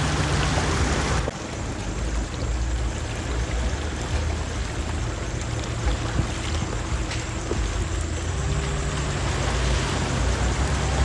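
A car driving, heard from inside the cabin: a steady low engine hum under a rushing wash of tyre and road noise, with a sudden change in the noise about a second in.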